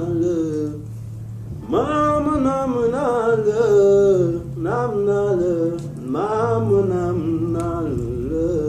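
A man singing a slow melody in long, drawn-out phrases that bend and hold their notes, with short breaks between them.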